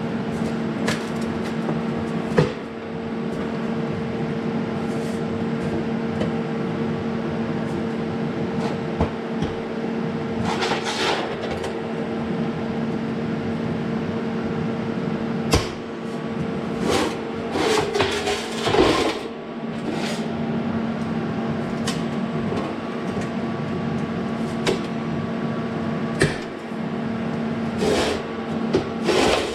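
Welder tack-welding metal: a steady electrical hum with short bursts of crackling tacks and a few sharp knocks, several bunched together in the middle and again near the end.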